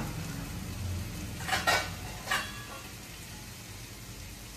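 A few light clinks of a utensil against the pot of a pressure cooker holding boiled potatoes, two close together then one more, over a faint steady sizzle from a pan of frying masala.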